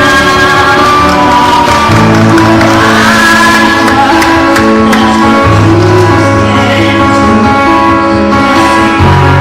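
A song: a singing voice over instrumental accompaniment, with the bass note changing about every three to four seconds.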